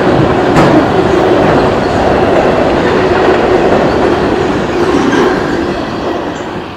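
CSX autorack freight cars rolling past at speed: a steady rumble and clatter of steel wheels on rail with a few sharp clicks, fading over the last second or so.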